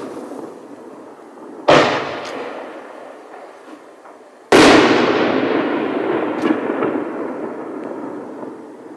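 Two consumer artillery shells bursting in the air about three seconds apart, the second louder. Each bang is followed by a long fading rumble, with a few faint pops in the tail.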